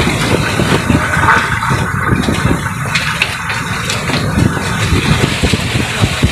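Rough sea and wind: waves rushing and washing against a small boat's hull, with gusts of wind buffeting the microphone in an uneven, continuous roar.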